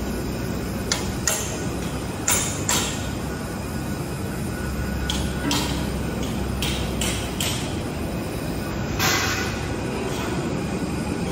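Airbus A320 cabin noise on the ground after landing: a steady rush with a low hum that drops away about seven seconds in, and a scatter of about ten sharp knocks and rattles from the cabin as the aircraft rolls.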